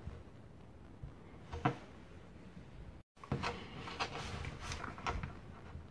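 Faint handling noise from fingers on a Xiaomi Mi Smart Band 5 fitness band: a single light click, then scattered soft clicks and rubbing of the band. There is a brief dropout to silence partway through.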